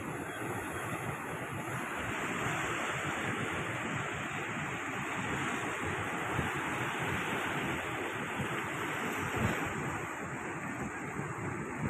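Seawater surging and washing over low rocks at a rocky shoreline, a steady rush of surf.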